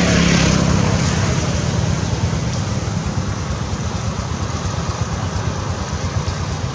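Steady outdoor background noise: a low rumble with hiss, a little louder in the first second.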